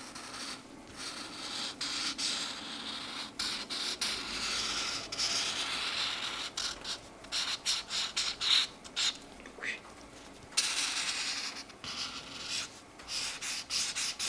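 Mancola felt-tip markers stroking across a colouring-book page: scratchy strokes of varying length with brief pauses between them, shorter and quicker in the second half.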